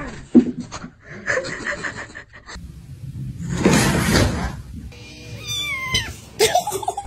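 Cats and kittens meowing in a string of short clips. There is a loud burst of rustling noise in the middle, and a high meow that falls steeply in pitch near the end.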